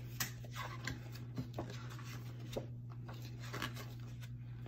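Soft rustling and scattered light taps of a paperback picture book being handled and turned around in the hands, over a faint steady low hum.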